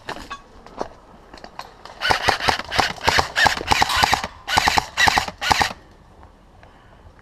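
Scoped airsoft rifle firing on full auto: rapid clicking shots in several bursts starting about two seconds in, the last few shorter, stopping just before six seconds. A few faint handling clicks come before the first burst.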